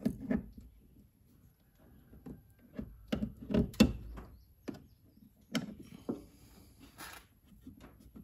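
Scattered light clicks and knocks of a small screwdriver and wires being worked into a push-in terminal block, with the loudest cluster about three to four seconds in and a brief rustle of wire handling near the end.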